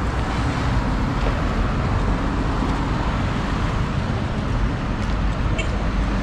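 Steady street traffic noise: road vehicles passing with a constant low rumble.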